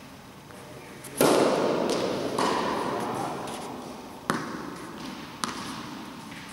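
A tennis ball struck hard with a racket on a serve about a second in, the hit ringing out in a large indoor hall. Later come two sharp bounces of a tennis ball on the hard court, about a second apart.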